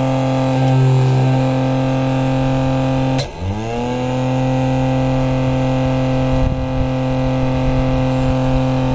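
Small DC motor spinning the striker wheel of a homemade cardboard match-lighting box, running with a steady hum. About three seconds in, a match is struck against the spinning wheel with a sharp scratch; the motor's pitch drops under the load and climbs back up over about a second.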